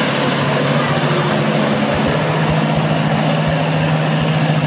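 Ride-on mower's engine running steadily close by: a low, even drone that grows stronger about two seconds in.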